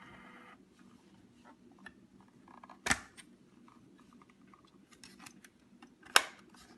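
DYMO LabelManager 160 label maker's print motor whirring steadily as it feeds tape, stopping about half a second in. Then small handling clicks, and two sharp plastic clicks about three seconds apart, the second the loudest.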